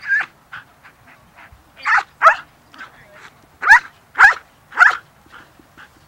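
A dog barking: six loud, sharp barks in uneven pairs and threes, with fainter short barks and yips between them.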